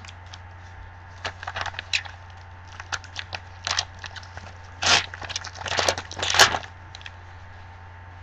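Foil trading-card pack wrapper crinkling and tearing as it is opened by hand: a string of crackly rustles, loudest in two tears in the second half.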